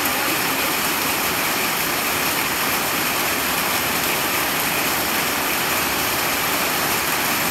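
Heavy rain falling steadily on a sheet-metal roof overhead and splashing on a flooded concrete yard, an even, unbroken hiss.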